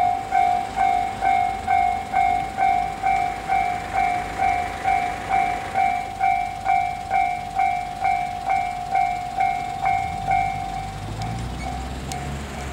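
Omnidirectional-type electronic level crossing alarm ringing its repeated ding-ding at about two strokes a second, warning of an approaching train. The strokes weaken about ten seconds in, and a low rumble rises near the end.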